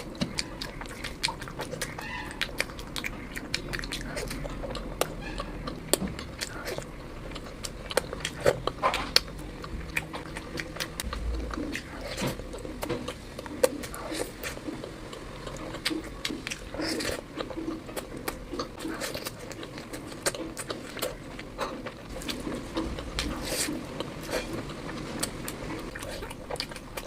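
A person eating close to the microphone: chewing, with many irregular mouth clicks and smacks.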